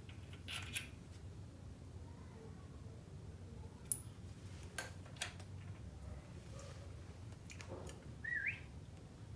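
Scattered sharp metallic clinks and clicks of tools and engine parts being handled during an engine teardown, over a low steady hum, with a short rising chirp near the end.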